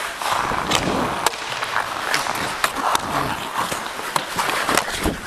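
Ice hockey skate blades scraping and carving on the ice, with a few sharp clacks along the way.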